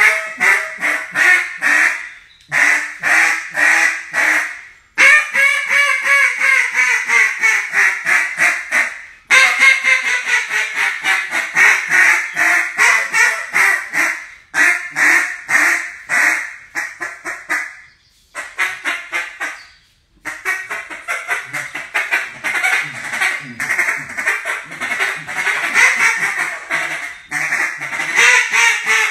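Small-bore acrylic duck call (the "Тэшка" model) blown by mouth in runs of rapid quacks. About five seconds in comes a long call that falls in pitch, followed by long strings of quacks with short pauses between them.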